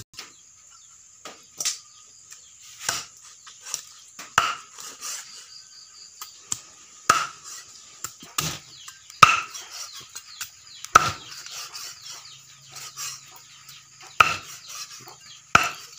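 Cleaver chopping raw chicken, bone in, on a thick wooden chopping block: about a dozen sharp chops, irregularly spaced roughly a second apart.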